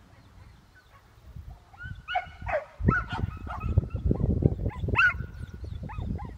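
Rubble-search rescue dog barking and yipping: a few high, pitch-bending calls from about two seconds in, with a louder cluster around five seconds. A loud low rumble runs underneath for the second half.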